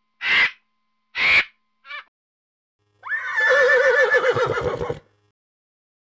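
Three short bird calls in the first two seconds, then a horse whinnying for about two seconds, its pitch quavering and falling.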